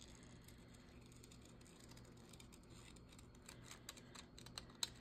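Faint snips of small scissors cutting through a paper sewing-pattern cover, fussy-cutting around a figure. The first half is near silence; the snips come in the second half and grow more frequent toward the end, over a faint steady low hum.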